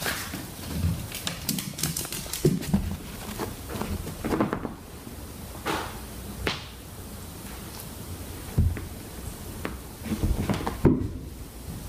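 Irregular soft thuds and rustling as two pets wrestle against each other on a fabric sofa.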